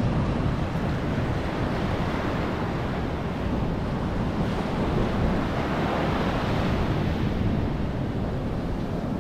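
Small surf breaking and washing up on a sandy beach, a steady rush of water, with wind buffeting the microphone.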